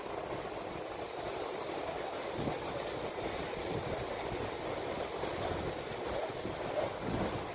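Ocean surf: waves breaking and washing in, a steady rushing noise.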